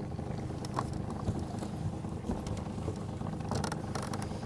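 Pontoon boat's Mercury 60 EFI Bigfoot four-stroke outboard running at a steady speed while under way, with faint scattered clicks over the hum.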